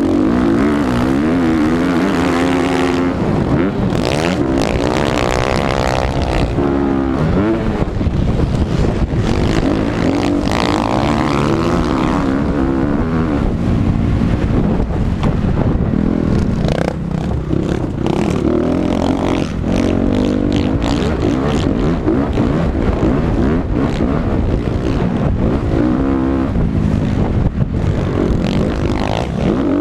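Several motocross dirt bikes racing on the track, their engines revving up and dropping back again and again as the riders shift and throttle through the course.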